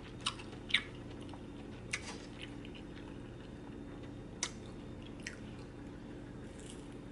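Close-miked chewing of a cheese quesadilla, soft and wet, with a handful of sharp mouth clicks and smacks spread through it, over a faint steady hum.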